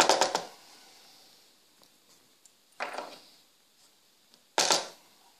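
Small metal padlock parts being handled: three short bursts of clicking and rattling. The first, at the start, and the last, near the end, are the loudest.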